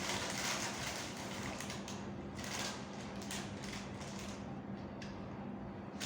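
Rustling and shuffling handling noises in irregular streaks, fading out about four seconds in, over a steady low hum.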